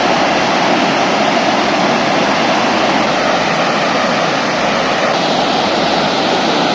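Steady rushing noise of a 70-foot waterfall.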